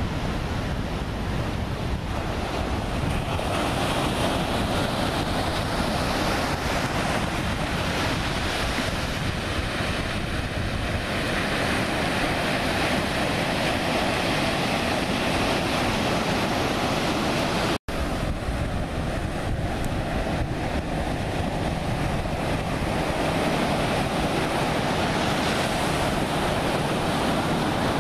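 Ocean surf rolling in and washing ashore, with wind buffeting the microphone. The sound cuts out for an instant about eighteen seconds in.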